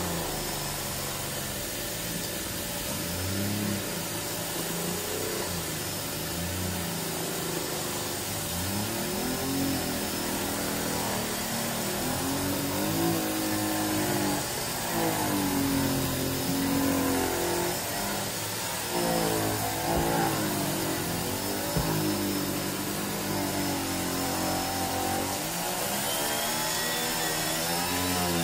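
Dyson DC21 canister vacuum running with its early air-driven turbine tool on upholstery: steady suction rush, with the turbine brush's hum rising and falling in pitch as the head is pushed back and forth over shredded paper and hair. The turbine bogs down a little under the load but keeps spinning.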